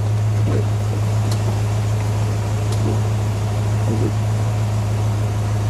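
Steady low mechanical hum, with a few light clicks and knocks from hands working the convertible top's header latches.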